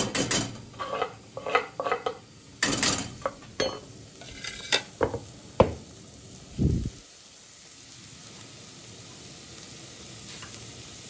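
Metal spoon clinking and scraping against a stainless steel saucepan and a wooden cutting board as chopped garlic, chillies and herbs are scraped into oil, with a dull thump about six and a half seconds in. After that a faint, steady sizzle, slowly growing, as the charmoula starts to fry in olive oil.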